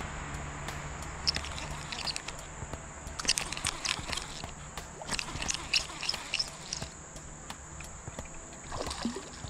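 Irregular light clicks and taps from hands handling a baitcasting rod and reel close to the microphone.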